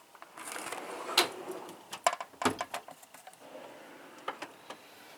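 A tool being put away and a metal toolbox drawer sliding open, with a rustling slide in the first couple of seconds and several sharp clicks and knocks of metal on metal.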